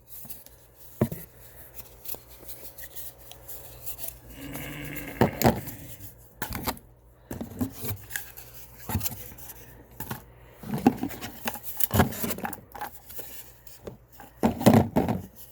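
Hands opening packaging tubes and handling the small bottles inside: irregular clicks, knocks and rustling.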